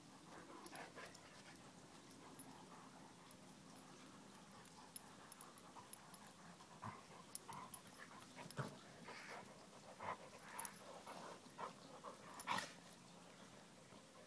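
Two dogs, a soft-coated wheaten terrier and a labradoodle, play-fighting: faint panting and short snuffling and vocal noises in scattered bursts, busier in the second half, with the loudest one near the end.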